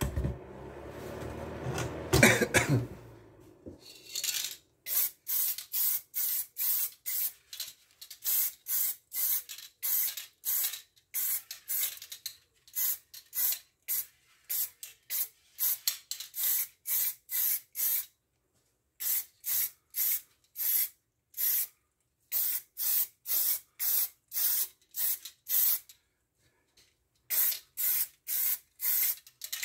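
Black spray paint hissing onto a car wheel rim in short, even bursts, about two a second, with a couple of brief pauses: a coat of paint going on. The first few seconds hold rustling and knocking as the camera is handled.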